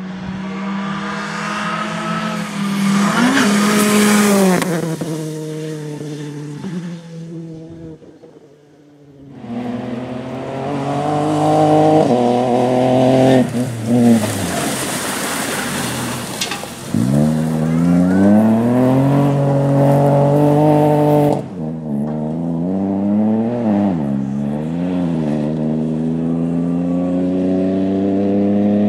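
Rally cars driving past one at a time at full attack, first a Citroën C3 R5 and then a Ford Fiesta rally car. The engines rev hard, climbing in pitch through the gears and dropping on lifts and downshifts. There are three separate passes, with a break about eight seconds in and another about two-thirds through.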